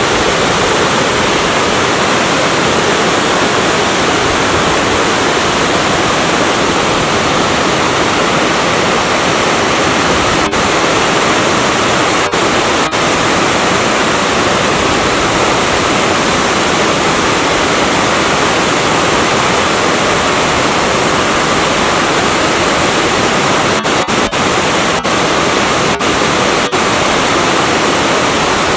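Waterfall about five metres high pouring off a rock face into a deep plunge pool: a loud, steady rush of falling water.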